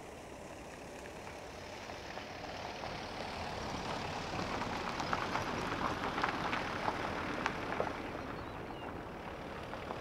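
Boeing 777F airliner on final approach, the jet noise of its twin GE90 turbofans swelling as it nears and loudest a few seconds in, with scattered short clicks over it.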